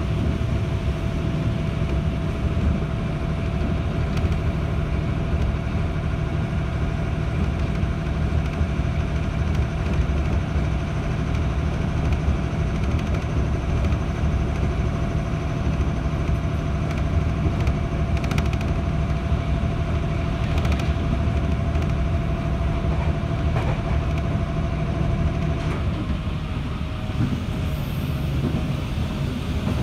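JR 211-series electric train running at speed, heard from inside the carriage: a steady rumble of wheels on rail with a steady hum that cuts out near the end.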